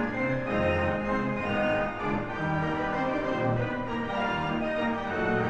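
Instrumental background music with sustained chords over a moving bass line.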